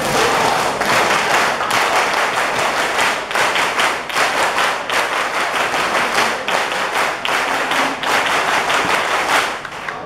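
A large group clapping their hands, a dense stream of many claps at once that starts abruptly.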